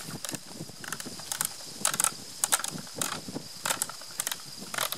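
Irregular metallic clicks and short rattles from a Fabarm L4S 12-gauge semi-automatic shotgun as its forearm is taken off for cleaning.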